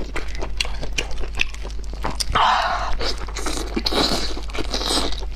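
Close-miked mouth sounds of eating braised lamb ribs: wet chewing and biting with many short smacking clicks, and a longer noisy burst a little after two seconds in.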